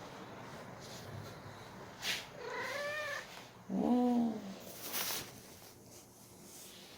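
Domestic cat meowing once, about two and a half seconds in: a short call that rises and then falls.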